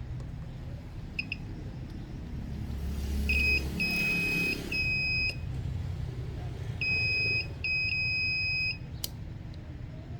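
Multimeter continuity buzzer beeping on and off as the probes make and break contact across a SIM card-detect switch: the switch closes when the SIM is ejected. The beeps are a steady high tone: a short one about a second in, a run of three between about 3 and 5 seconds, and two longer ones around 7 to 9 seconds.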